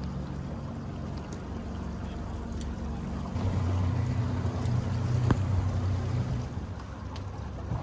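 Boat's outboard motor running at low speed, its note dropping lower partway through, with one sharp click about five seconds in.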